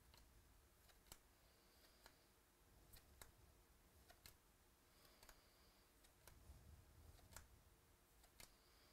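Faint clicks and soft sliding of glossy trading cards being flipped through by hand, about one click a second.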